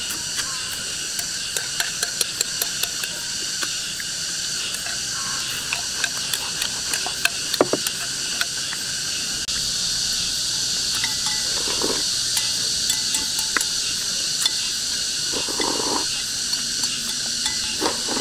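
Eating at a table: chewing and gnawing on chicken feet, with frequent small clicks of chopsticks and bowls, over a steady high chorus of insects.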